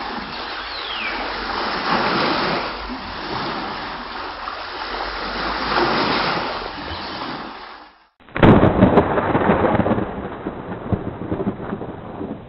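Thunderstorm: rain and rolling thunder as a dense rumble that swells and eases twice, ending abruptly. After a short break, a new sound starts suddenly loud with a crackling texture and slowly fades.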